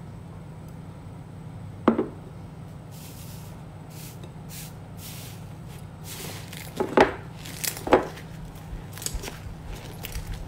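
Slime being squeezed and poked, with soft sticky rustles and a few sharp pops: one about two seconds in, and the loudest two about seven and eight seconds in. A steady low hum runs underneath.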